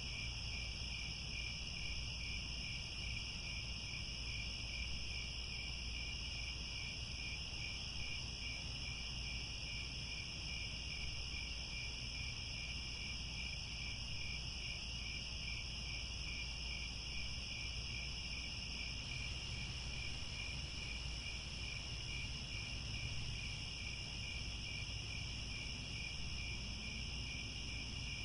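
A dense chorus of crickets trilling without pause, several high steady tones layered together, one with a fast even pulse. A faint low rumble runs underneath.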